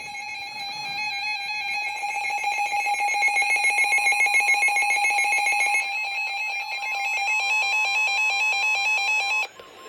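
Emergency Alert System attention signal: a loud, steady, harsh electronic alert tone that cuts off abruptly near the end.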